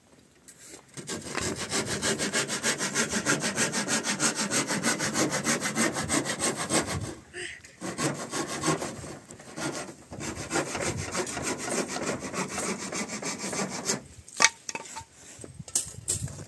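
Hand saw cutting through a wooden roof board in quick back-and-forth strokes, about four a second. It pauses briefly about seven seconds in, then goes on more unevenly. A single sharp knock comes a couple of seconds before the end.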